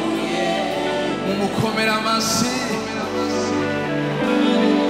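Live gospel band playing, with keyboard, drums and guitar under sustained notes and voices singing.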